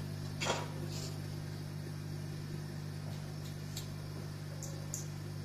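A steady low electrical or mechanical hum, with a few faint short ticks and rustles over it, the clearest about half a second in.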